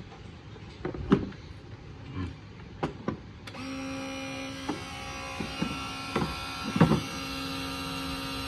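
Izumi S7G-510H battery hydraulic crimping tool: a few clicks at first, then about three and a half seconds in its electric motor and hydraulic pump start and run steadily as the crimping head advances, with a few knocks along the way.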